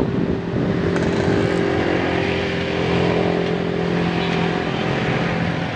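A vehicle's engine running at a steady pitch while riding along a road, with road and wind noise.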